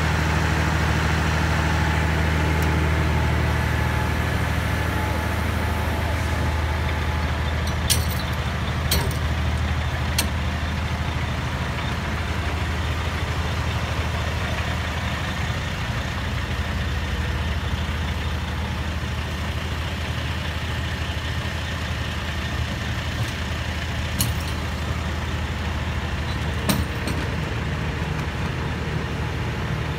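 Heavy diesel truck engines running steadily as a wrecker tows a stuck dump truck free, with a few sharp clicks or knocks around the middle and near the end.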